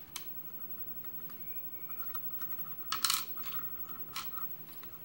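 Small metal clicks and clinks from a brass lock cylinder and small steel tools being handled on a wooden bench, with the loudest cluster of clinks about three seconds in and a single click a little after four seconds.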